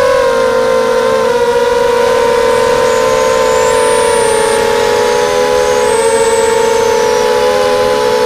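Brushless motors and propellers of a QAV250 FPV racing quadcopter, heard from its onboard camera: a loud, steady whine that drops slightly in pitch at the start and then wavers up and down with the throttle.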